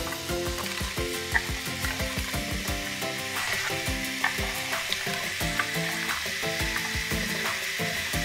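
Carrot slices sizzling as they drop into hot ghee in a pressure cooker, a steady frying hiss. Background music with a beat plays underneath.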